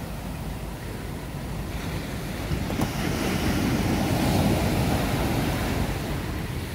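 Surf breaking and washing up against the hull of a beached fishing boat at the water's edge. A wave swells to its loudest in the middle and then eases off.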